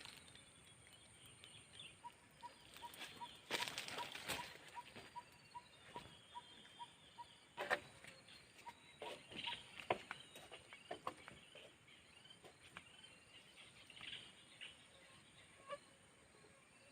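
Quiet outdoor ambience with scattered rustles and clicks and faint high chirps. From about two seconds in, evenly spaced short pips come about three a second for several seconds. No engine is running.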